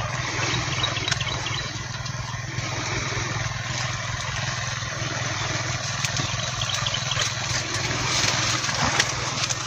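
Small engine of an irrigation water pump running steadily: a constant low hum under an even rushing noise, with a few faint clicks.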